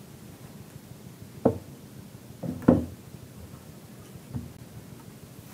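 Dull knocks of heavy resin statue arms being handled and set down on a hard surface: one about a second and a half in, two close together a second later (the loudest), and a faint one near the end.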